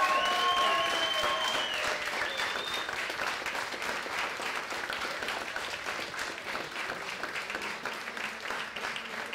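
Audience applauding at the end of a performance, the clapping slowly dying down. A long high tone sounds over the first couple of seconds.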